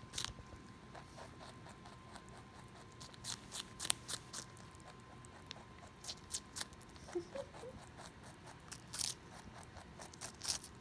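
Domestic rabbit biting and chewing watermelon rind: crisp crunches that come in quick clusters with short pauses between them.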